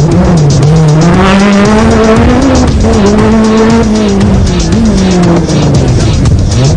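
Group B rally car engine at full throttle, its revs climbing and holding high, dipping briefly about halfway through at a gear change, then dropping away near the end, with sharp crackles over the engine note.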